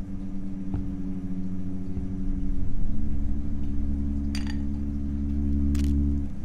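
Low, sustained drone of a film score, changing to a new chord about three seconds in and cutting off near the end. Two brief glassy clinks sound over it in the last couple of seconds.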